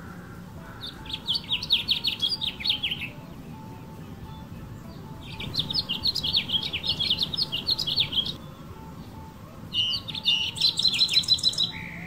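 Male house finch singing: three bouts of rapid, varied warbled notes, each lasting two to three seconds, with short pauses between them.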